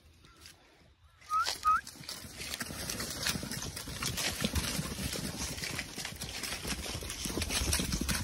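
A small flock of sheep running and jostling on dry dirt, hooves scuffling and trampling, as a border collie pup drives them. About a second in come two short high chirps.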